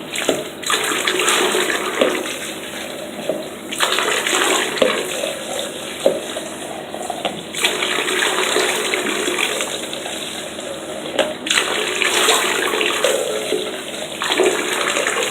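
Water running from a bathtub tap and splashing in the tub during a dog's bath. The splashing changes in tone every few seconds.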